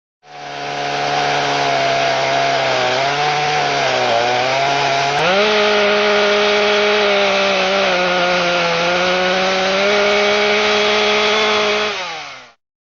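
Two-stroke chainsaw running hard while ripping a log lengthwise in a chainsaw mill. The engine note sags under load for a few seconds, then climbs sharply about five seconds in and holds higher until the sound fades out near the end.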